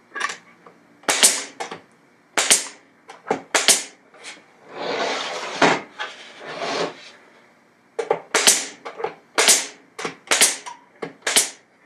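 Pneumatic brad nailer firing brads into the sides of a wooden jig: a long run of sharp, separate cracks, with a second-long rush of noise about five seconds in.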